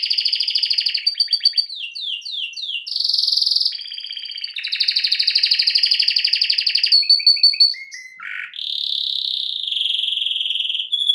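Domestic canary singing: long rapid trills and rolls, with a run of quick downward-sweeping notes about two seconds in.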